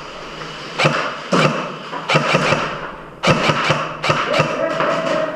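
Airsoft guns firing: sharp shots and impacts, a few at first and then coming thick and fast from about three seconds in.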